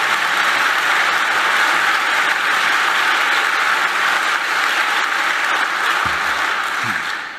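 Audience in a large conference hall applauding steadily, dying away near the end.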